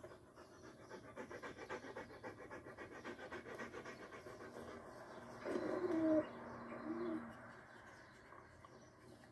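German Shepherd dog panting rapidly as it walks and sniffs. About five and a half seconds in come a couple of short, higher-pitched calls, which are the loudest part.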